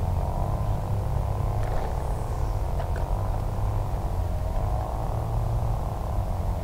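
A motor running steadily, its pitch wavering slowly up and down, with a few faint clicks.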